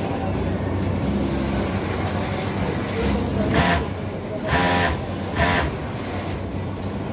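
Steady hum of garment-factory machinery, with an industrial sewing machine run in three short bursts about a second apart around the middle.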